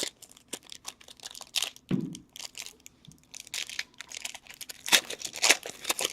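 Foil wrapper of a trading-card pack being torn open and crinkled: irregular crackling, with two louder tearing bursts about five seconds in.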